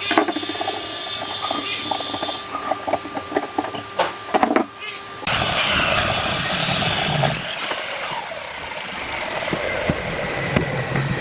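Workshop sounds: scattered knocks and clicks for the first few seconds, then a power tool running steadily from about five seconds in.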